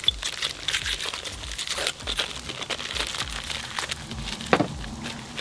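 Paper wrapper being torn and crumpled off a Lea & Perrins Worcestershire sauce bottle by hand: irregular crinkling and tearing, with one sharper crackle about four and a half seconds in.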